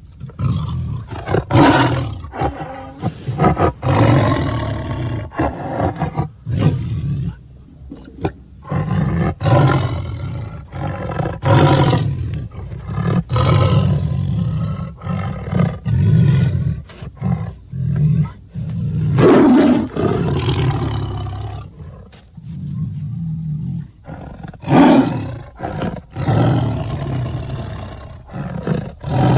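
Tiger roars and snarling growls in a long string of loud outbursts over a continuous low rumble, broken by a few short pauses.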